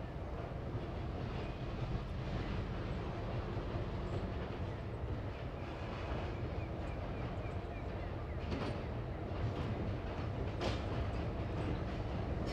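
Diesel locomotive Y159 running as it slowly approaches hauling carriages, a steady low engine note that grows slightly louder. A few sharp clicks come through in the second half.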